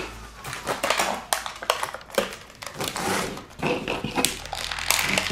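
Irregular clicks, taps and crinkles of small plastic WWE Rumblers wrestling figures being unpacked from their plastic packaging and handled on a tabletop.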